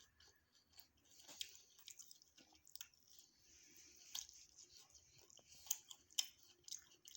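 A person chewing food, with irregular sharp mouth clicks.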